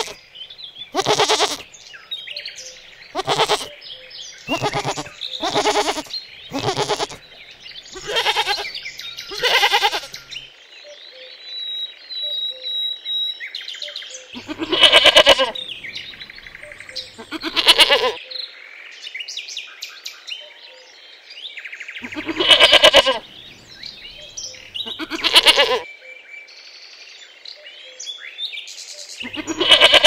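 Goats bleating repeatedly, about a dozen calls, some short and a few held for about a second. Small birds chirp faintly between the bleats.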